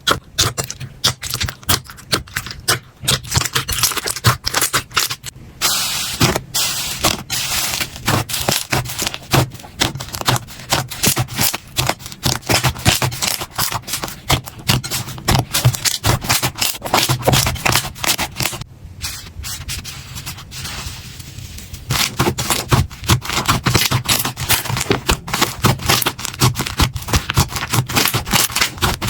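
Slime being squished and pressed by hand, giving a dense run of quick crackles and pops, with a short lull about two-thirds of the way through.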